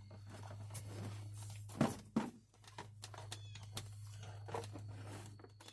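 Small clicks and knocks of plastic car door-handle parts being handled and fitted to a door panel, over a steady low hum that stops near the end. A short squeaky sound comes about two seconds in.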